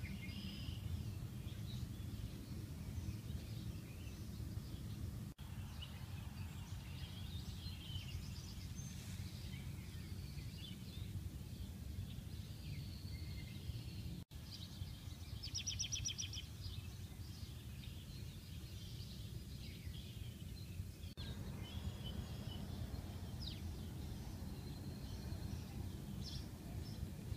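Outdoor ambience: a steady low rumble with scattered bird chirps and calls, and a short rapid bird trill about halfway through.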